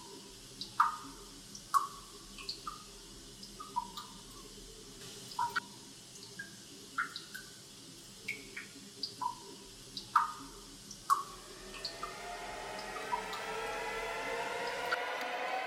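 Water dripping: single drops plink into water at irregular intervals, roughly once a second. About twelve seconds in, a drone of several rising tones swells in and grows louder.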